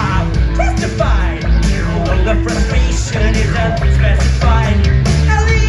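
Live rock band playing loudly, with electric guitar, bass and keyboards under a singer's voice.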